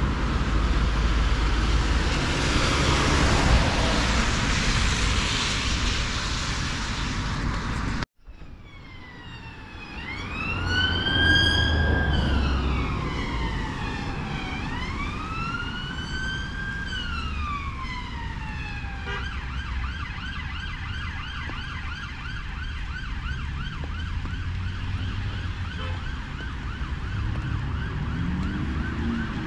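Road traffic passing close by. After a sudden cut about eight seconds in, an emergency vehicle's siren sounds over the traffic rumble: two slow rising-and-falling wails, then a fast repeating yelp that carries on.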